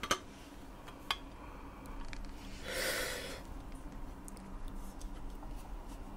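Sheet-metal printer frame panels being handled: a light knock at the start and another about a second in, and a short breathy rush about three seconds in.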